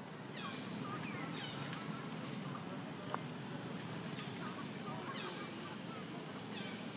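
Monkeys giving short high-pitched calls, each sliding down in pitch, repeated about every second, over a steady low background rumble, with a single sharp click about three seconds in.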